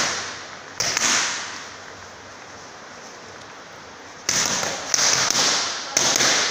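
Boxing gloves smacking focus mitts: one sharp punch about a second in, then a quick run of punches from about four seconds in, each crack followed by a fading echo.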